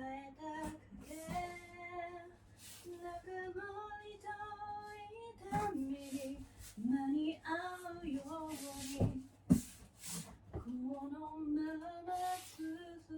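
A woman singing a melody solo, with no accompaniment. A few sharp knocks sound partway through.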